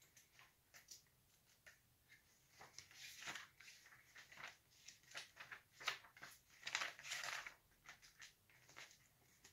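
Faint rustling of glossy catalogue pages being leafed through, with several short swishes as pages turn, the longest about seven seconds in.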